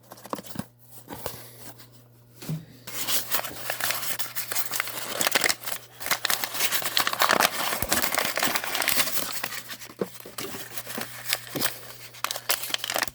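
Packing paper being crinkled and pulled out of a shipping box: a few light handling clicks, then dense paper rustling from about three seconds in.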